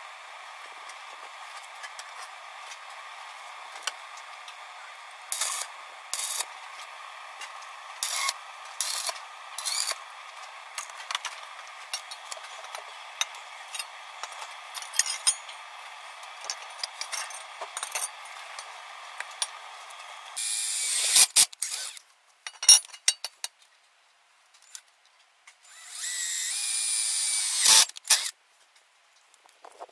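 Steel pipes knocking and clinking as they are handled, over a steady hiss. About two-thirds through the sound changes abruptly to a cordless drill running in two short bursts, the second about two seconds long and climbing in pitch.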